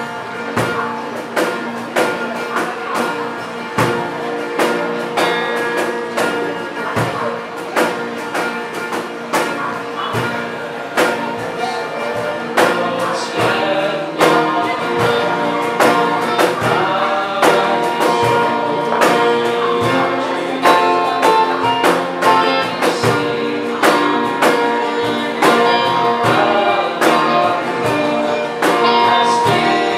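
A small live band playing a worship song: strummed acoustic guitars and an electric guitar over a steady cajón beat, with a young man's voice singing over them from about halfway in.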